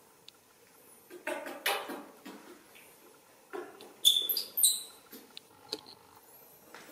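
Shrill squeaks and squeals from a baby monkey in short bursts, a cluster about a second in and the loudest, highest cries at about four seconds, as it is picked up by hand.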